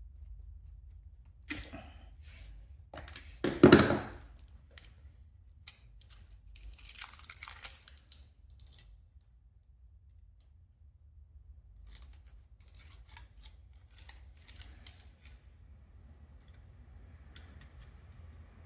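Handling noises from hand work: scattered clicks and knocks, a short loud rasp about three and a half seconds in, and a rustling, tearing sound around seven seconds.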